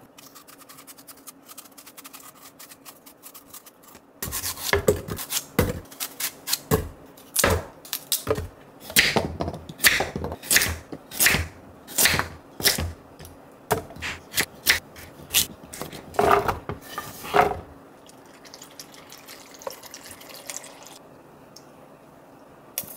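Kitchen knife cutting raw apple and a hard carrot on a wooden cutting board: a run of irregular sharp chops and knocks that starts about four seconds in and stops a few seconds before the end. Softer scraping of an apple being peeled comes before the chopping.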